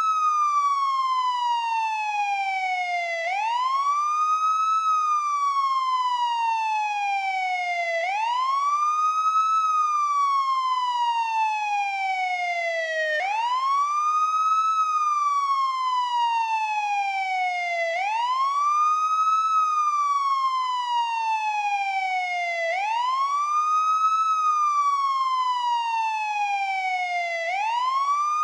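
Police siren sounding its wail tone: the pitch rises quickly, then falls slowly, in a steady cycle that repeats about every five seconds.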